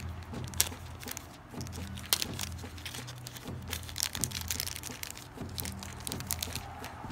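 Crinkling and crackling of a small clear plastic bag being handled and pulled open, with irregular sharp crackles, two of them louder, about half a second and two seconds in.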